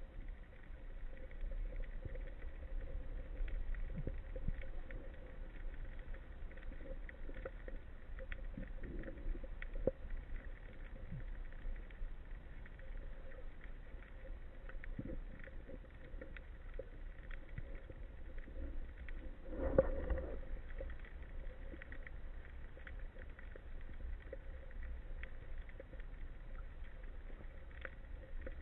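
Underwater ambience heard through a camera housing: faint scattered crackling clicks over a low rumble and a faint steady hum, with one brief louder muffled sound about twenty seconds in.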